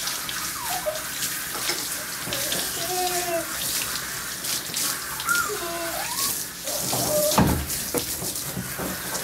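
Hand-held spray nozzle on a hose spraying water over a dog in a bathing tub: a steady hiss of spray splashing onto fur and tub. A few short squeaky whine-like tones come through, and there is a thump about seven seconds in.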